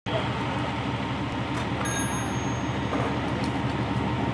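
Fire engine's diesel engine running steadily with a low rumble under a wash of noise at the fire scene; a short high ding sounds about two seconds in.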